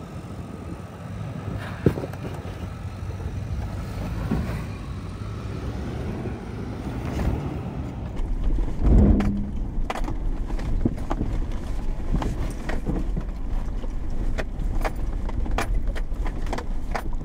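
Lexus LX470's V8 running low as the truck crawls along a rough off-road trail, with jangling rattles. From about eight seconds in there are frequent short clicks and knocks, and a heavy thump near nine seconds.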